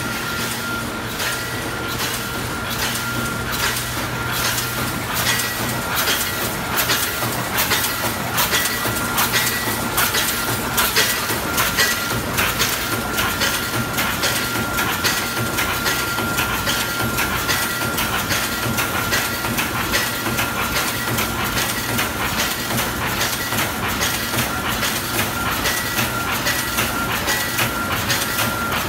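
JK-AW-1200 automatic chicken cage mesh welding machine running, giving an even, repeating clatter of welding and wire-feeding strokes over a constant high whine.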